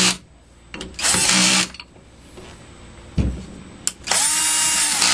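Cordless drill/driver spinning a socket in short bursts as it tightens the bridge rectifier's mounting screws in an alternator housing. One short burst comes about a second in and a longer one near the end, with a knock between them.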